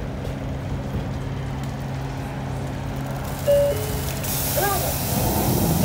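Isuzu Erga city bus heard from the cabin, its four-cylinder diesel running steadily. About three and a half seconds in, a two-tone falling chime sounds, and a loud hiss of air starts soon after.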